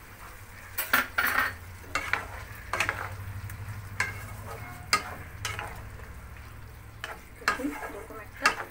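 Wooden spatula stirring and scraping chicken and vegetables around a nonstick wok, with a soft sizzle from the pan. The scrapes and knocks come irregularly, about once a second, over a low steady hum.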